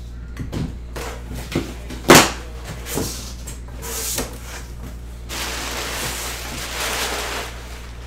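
Cardboard box and its contents being handled: a run of knocks and clacks, the loudest a sharp thump about two seconds in, then about two seconds of scraping rustle.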